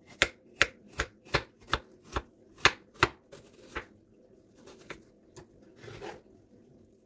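Kitchen knife slicing through half an apple onto a wooden cutting board: nine sharp taps, about two or three a second, as each slice is cut. A few softer sounds follow.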